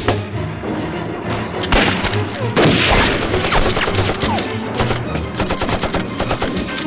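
Battle gunfire: many rifle shots in close succession, over background music. The firing is loudest around the middle.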